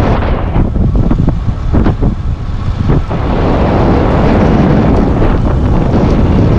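Loud wind buffeting the microphone, a steady rumbling rush with a brief dip a couple of seconds in.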